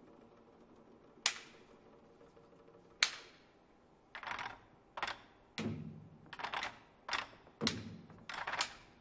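Wooden drumsticks clacking sharply: two single clacks a couple of seconds apart, then a quicker, uneven run of clacks, a few of them joined by a low thud from a Chinese drum's head.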